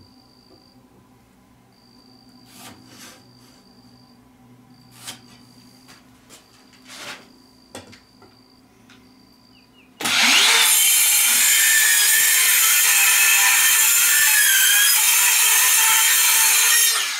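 Light handling knocks, then about ten seconds in a cordless circular saw starts up and runs steadily, cutting kerfs into a weathered wooden board to form a slot, until it stops abruptly at the end.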